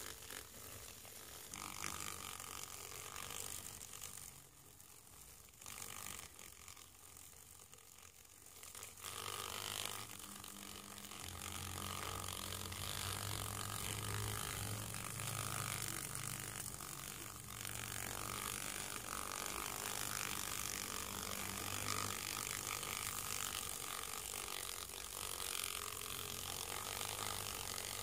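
Male silkworm moth fluttering its wings rapidly against a paper towel: a fast, papery ratcheting flutter. A low steady hum comes in about ten seconds in.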